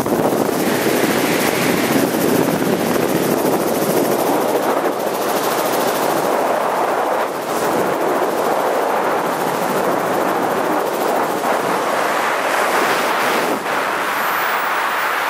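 Loud, steady rushing of air over the camera's microphone at altitude, during a helicopter exit and wingsuit flight.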